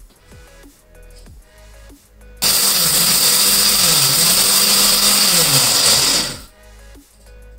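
Electric mixer grinder grinding dry pickle spices in its small jar, run in one burst of about four seconds starting about two and a half seconds in. The motor's pitch dips briefly midway and falls away as it winds down.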